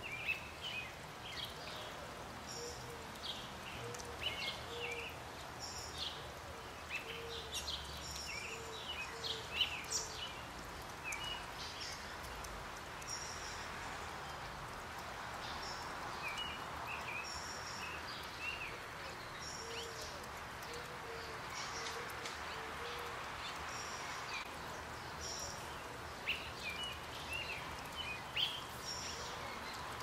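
Garden birds chirping on and off over steady outdoor background noise, with a low short call repeated in runs of three or four every few seconds.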